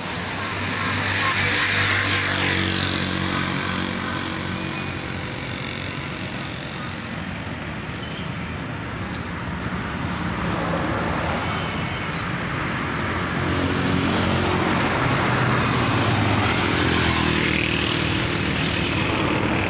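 Street traffic: motor vehicles driving past on a road, engines swelling louder as they pass, about two seconds in and again later on.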